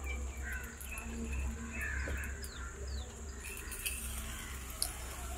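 Faint birds chirping: a short run of quick repeated chirps, then a couple of brief falling whistles, over a steady low hum.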